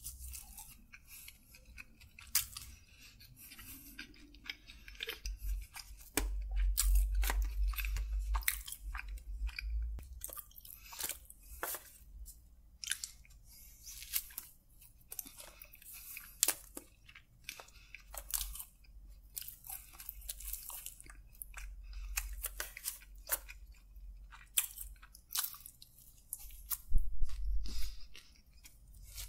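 A person eating grilled chicken kebab close to the microphone: irregular crunchy, crackling bites and chewing with wet mouth sounds. Dull low bumps come about six seconds in and again near the end.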